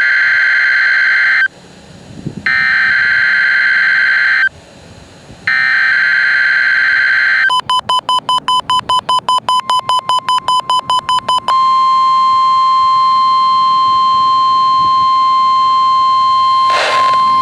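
Emergency Alert System tones for a test tornado warning. There are three screechy digital header bursts, each about two seconds long with short gaps between them. Then come about four seconds of rapid beeping, roughly five beeps a second, and then a single steady tone near 1 kHz, the weather-service alarm tone, lasting about five seconds.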